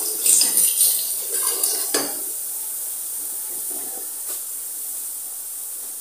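A wooden spatula scrapes and knocks against an aluminium pressure cooker several times in the first two seconds or so. Under it, onion-tomato masala sizzles steadily as it fries in oil.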